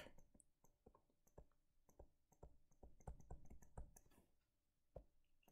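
Faint, quick, irregular clicks and taps of a stylus writing by hand on a tablet screen.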